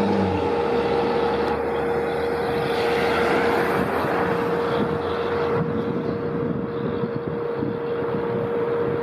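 Street traffic noise as a car drives past, with a steady, unchanging tone throughout; a low horn-like sound cuts off just at the start.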